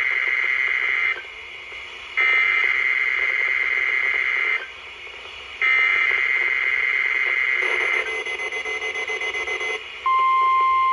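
Midland 74-200 weather radio sounding its alert: a loud, steady high-pitched tone in three long beeps about a second apart, then a fast pulsing beep, then a steady lower tone near the end.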